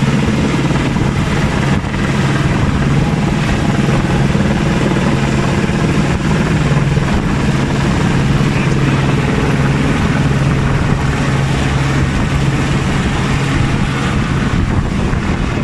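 Helicopter flying low overhead, its rotor and turbine engine running loud and steady.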